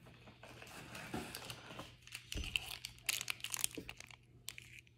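Plastic snack and candy wrappers crinkling as they are handled and lifted out of a cardboard box, in faint, irregular crackles.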